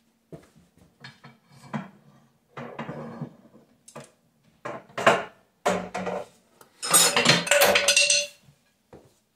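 Heavy steel tractor parts clanking and knocking as the Ford 8N's front axle and radius arms are worked loose from the cast-iron oil pan: a run of separate knocks, then a longer, louder rattling clatter with a ringing note near the end.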